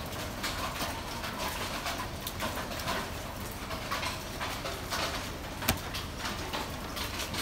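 Steady background hiss with scattered light taps and knocks, one sharper knock a little past the middle.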